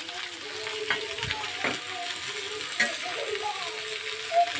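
Shredded cabbage and potato sizzling in hot oil in a metal kadai, with a spatula scraping and clicking against the pan a few times as it is stirred.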